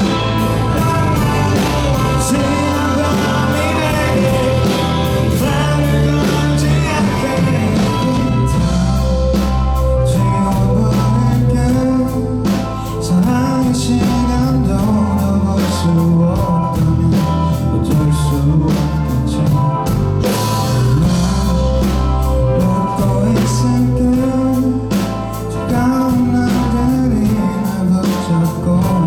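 A rock band playing live, with a man singing the lead vocal over guitar, bass and drums.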